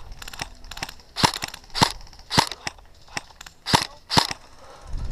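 Airsoft gun firing single shots: five sharp pops, irregularly spaced, starting about a second in. Fainter clusters of clicks come before them, likely more distant airsoft fire.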